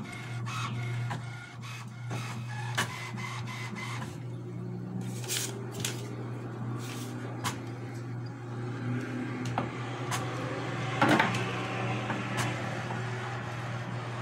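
HP DeskJet Plus Ink Advantage 6475 inkjet printer printing its test page after a cartridge change. A steady motor hum runs under many sharp clicks as the printhead carriage moves and the sheet feeds out, with one louder clack about eleven seconds in.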